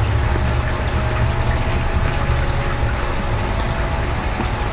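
Steady background rush, like running or trickling water, over a low rumble, with faint held tones above it.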